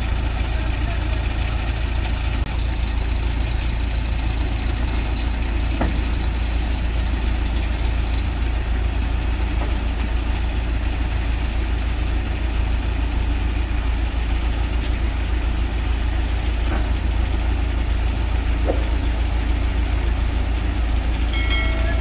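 Heavy diesel engines of construction machinery idling steadily, a low, even rumble with no revving.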